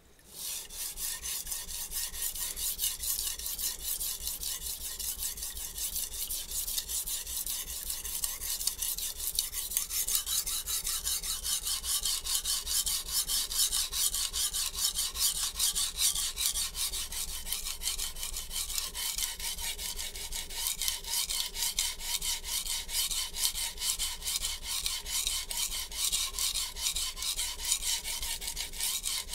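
HAP40-steel chef knife edge scraping in repeated sharpening strokes on a coarse 120-grit Shapton Glass waterstone, starting about half a second in. The stone has just been lapped with a 140-grit diamond plate and cuts slightly rougher and a little faster, but the very hard steel has not yet raised a burr.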